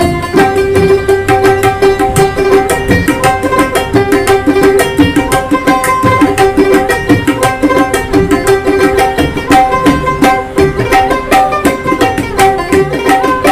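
Background music of plucked strings over a steady, fast drum pattern, in the style of Indian instrumental music.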